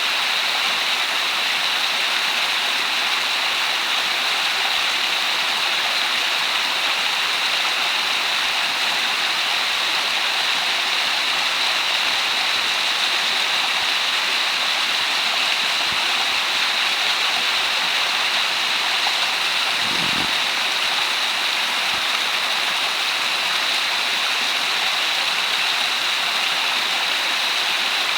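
Mountain-stream waterfall spilling as a thin, curtain-like sheet over rock, a steady rushing hiss with no change in level. A faint low thump comes about twenty seconds in.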